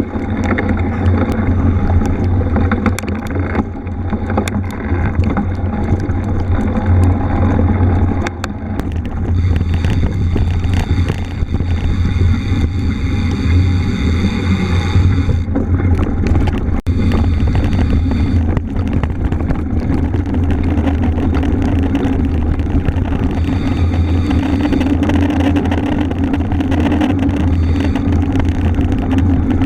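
Wind rumbling on the microphone of a camera carried on a mountain bike riding offroad, with the tyres' noise on rough ground and frequent clicks and rattles of the bike over bumps.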